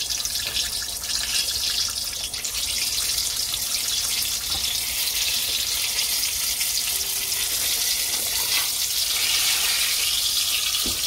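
Spring rolls deep-frying in hot oil: a steady sizzle with fine crackling.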